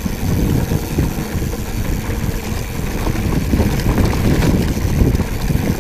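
Wind buffeting an action camera's microphone, mixed with the rumble of mountain-bike tyres rolling over a dry dirt trail on a descent.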